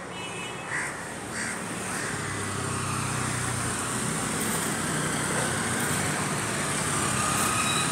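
Street traffic: a two-wheeler's small engine running as it passes below, over a steady hum of traffic, with two short sharp sounds about a second in.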